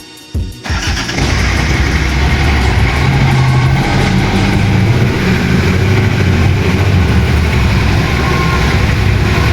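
1993 Daihatsu Taft's engine running steadily, coming in abruptly about half a second in.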